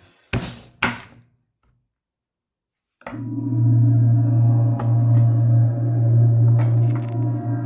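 Two sharp knocks, then after a short gap a loud, steady low machine hum with a few faint clicks, typical of a workshop machine's electric motor running.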